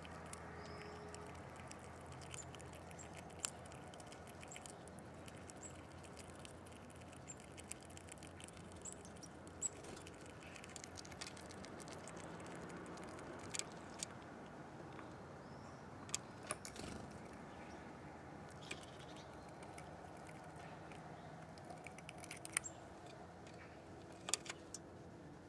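Irregular sharp taps and clicks of animals feeding at a windowsill feeding spot, over a faint background with a few faint, short high chirps.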